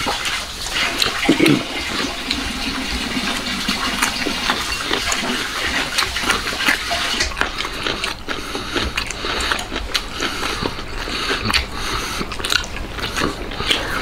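Close-up sounds of a person eating meat off an ostrich leg bone: wet sucking, slurping and chewing, with many small clicking smacks of the mouth.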